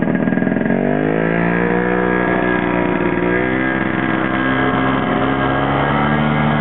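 Vintage snowmobile's two-stroke engine running at speed; its pitch climbs about a second in as it accelerates, then holds with small wavers.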